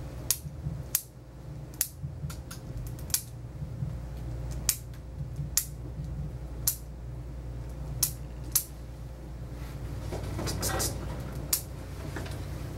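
Scissor-style dog nail clippers cutting through a dog's toenails: about a dozen sharp clicks, roughly one a second, irregularly spaced. Under them runs a steady low bass thumping from a neighbour's music coming through the wall.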